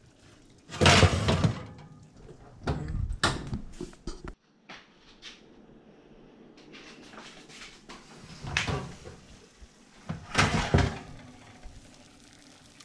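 Electric oven door being shut and later pulled open again, with knocks and metallic clatter from the door and the wire oven rack. The loudest thunks come about a second in and again near ten and a half seconds.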